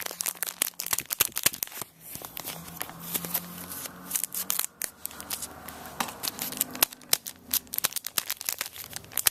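A trading-card pack wrapper being torn open and crinkled, a dense run of crackling and ripping.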